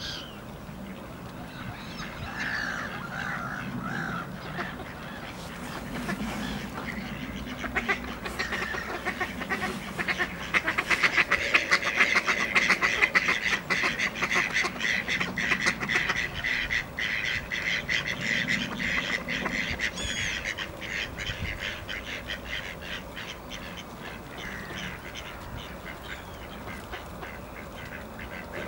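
A flock of mallards quacking, a rapid chatter of many overlapping calls that builds a few seconds in, is busiest and loudest around the middle, and thins out toward the end.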